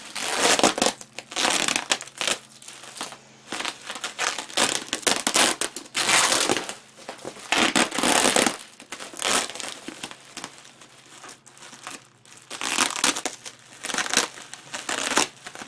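Plastic bubble wrap being pulled off and crumpled by hand, in irregular rustling, crinkling bursts.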